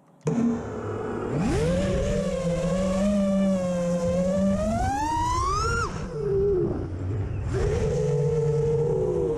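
FPV quadcopter's brushless motors and propellers whining. The pitch rises steadily for several seconds, drops off sharply about six seconds in, then comes back up and holds. The quad's arms are damped against the main plate with electrical tape.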